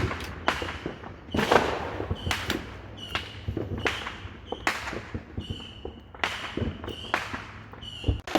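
Consumer fireworks and firecrackers going off around the neighbourhood: a steady string of sharp bangs, roughly two a second, each with an echoing tail. A short high-pitched tone recurs between the bangs.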